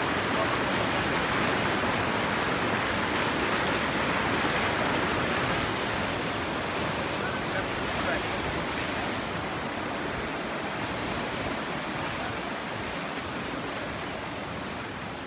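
Muddy floodwater rushing and churning over a riverbank in a steady roar of water, gradually getting fainter in the second half.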